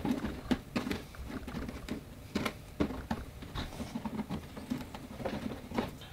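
Fingers working at freshly cut holes in the wall of a hard plastic Ridgid tool box: irregular clicks, taps and scrapes of plastic, several a second.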